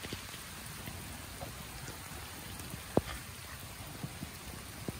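Steady rain falling, with a few heavy single drops striking close by, the loudest about three seconds in.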